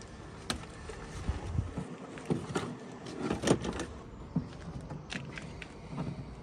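Plastic car door trim panel being lifted off the door, with scattered clicks and knocks and some rubbing, the sharpest knock about three and a half seconds in.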